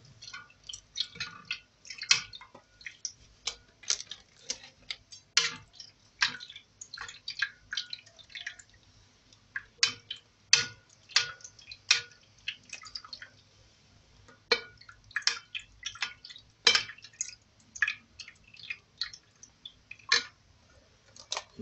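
Irregular sharp crackles, clicks and drips: dry roqaq pastry sheets crackling as they are handled and laid in a baking pan, while a broth, milk and butter mixture drips and is spooned over them.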